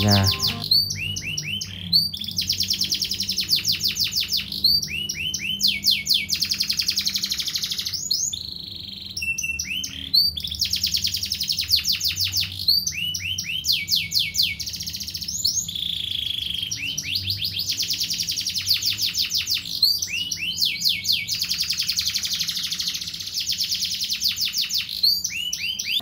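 Domestic canary singing: a string of rolling song phrases, each a few seconds of rapid high trills and quickly repeated notes, with short pauses between them.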